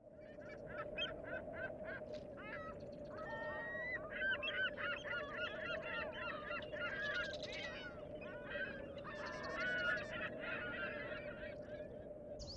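A crowd of birds calling at once, short chirps and calls overlapping almost without pause, over a faint steady hum.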